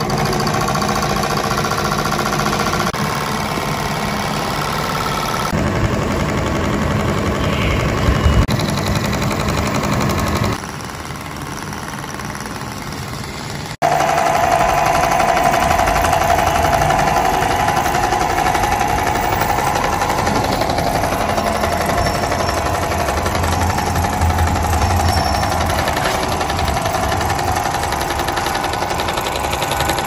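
Miniature single-cylinder diesel engine running with a fast, even knocking beat. The sound changes abruptly a few times where the footage is cut, and from about halfway through a steady, slightly wavering whine rides over the engine.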